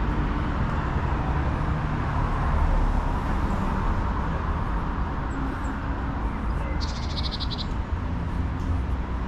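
Steady outdoor street ambience with a low rumble of traffic. About seven seconds in comes a brief, rapid high-pitched trill of a dozen or so quick pulses.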